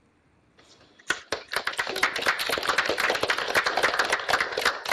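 Applause from a small audience of a few dozen people, faint at first and swelling into steady clapping about a second in.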